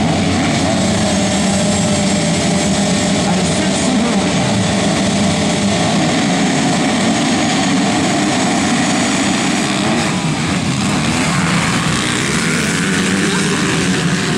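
A pack of motocross bikes held at high revs on the start gate, then racing off together: many engines running hard at once.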